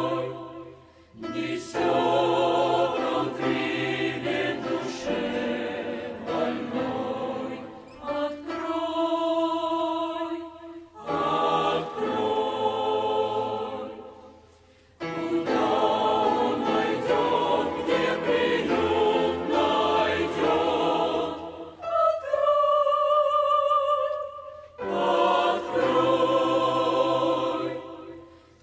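Choir singing a Russian hymn in sung phrases separated by short pauses. Around two-thirds of the way through, one phrase is sung with less of the low voices.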